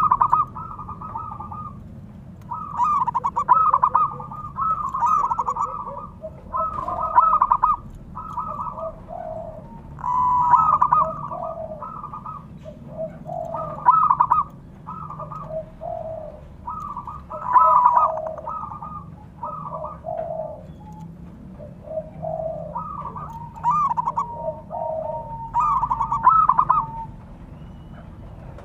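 Zebra dove (perkutut) cooing: short phrases of quick, trilled coos, each ending in lower notes, repeated every second or two.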